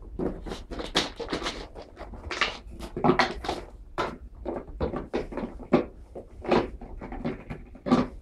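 Irregular run of sharp knocks and clatters, several a second, like cupboard doors and household things being banged in a small room.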